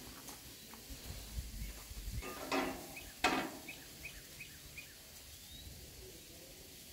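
Outdoor background with two soft knocks, then a small bird chirping a quick run of about six short, high notes.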